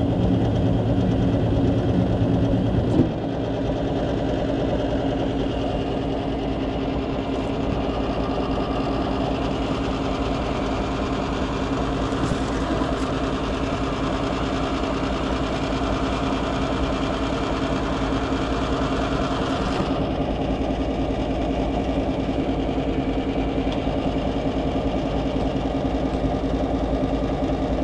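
Gas furnace running: a steady motor hum with a rushing of air. Some of the lower hum drops out about three seconds in, and the rushing eases about twenty seconds in.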